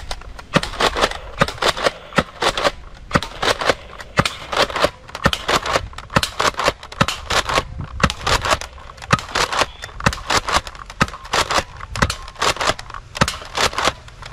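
Rapid, irregular gunfire shots, about two to four sharp cracks a second.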